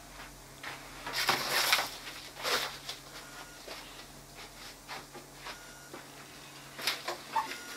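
A person moving about at a workbench: a few short rustling, scuffing sounds of steps and things being handled, the loudest about a second in and another near the end, over a low steady hum.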